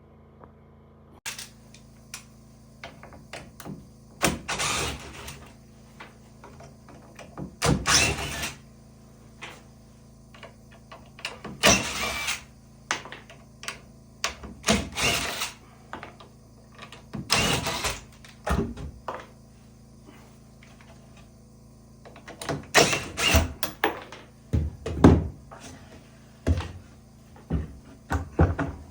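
Wooden knocks and thuds at irregular intervals, mixed with short rasping bursts of under a second each, from hand work on wooden cabinet doors.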